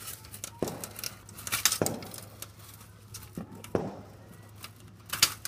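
Fireworks going off: a handful of sharp bangs, each with a short echo, the loudest about four seconds in.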